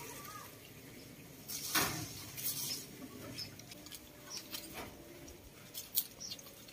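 A baby macaque's faint high squeaks, with leaves and branches rustling as it climbs and hangs from a branch. A few sharp clicks stand out, the loudest about two seconds in and another near the end.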